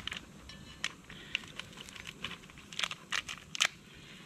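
Wood fire crackling in the base of a Kelly kettle (rocket-style storm kettle), with irregular sharp snaps and pops, the loudest about three and a half seconds in.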